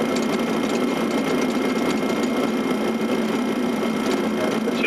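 Steady flight-deck noise of an airliner on short final approach: an even rush of airflow and engine noise that sits low, with a faint steady high tone above it.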